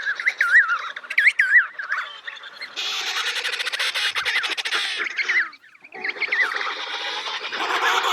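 Emperor penguins calling. The first calls warble and waver in pitch, then a dense chorus of many overlapping calls follows. The sound drops out briefly just past halfway before more calls come in.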